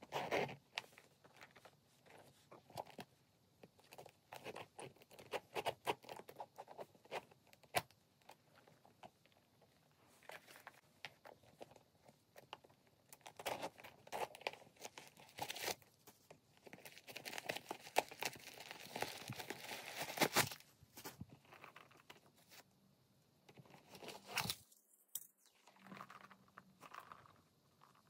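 Hands handling a small leather handbag up close: scattered light clicks and taps from its metal zip pulls and hardware, with a denser stretch of rustling and scraping about two-thirds of the way through as the bag is unzipped and opened.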